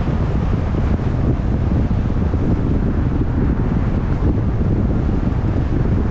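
Wind buffeting the microphone: a loud, steady, low rumble with no pauses.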